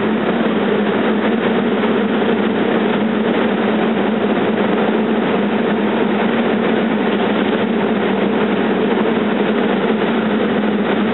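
SEPTA electric multiple-unit railcar standing close by, its onboard equipment giving off a loud, steady hum.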